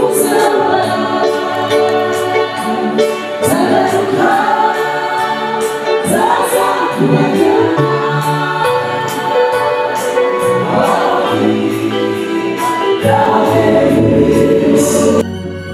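Gospel choir singing with a steady beat. Near the end it cuts off abruptly and slow violin music begins.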